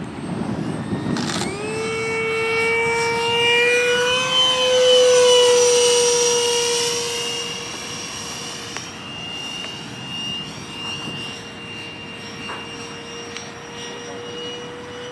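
Radio-controlled Mirage 2000 model jet flying past: its engine's high, steady whine comes in about a second and a half in, grows loudest about five seconds in as the jet passes, then eases off and holds steady.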